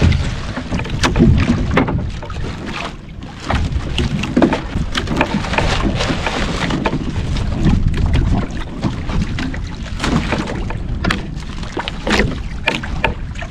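Wind buffeting the microphone and water slapping against the hull of a small outrigger canoe, with scattered knocks and rattles of fishing gear being handled in the boat.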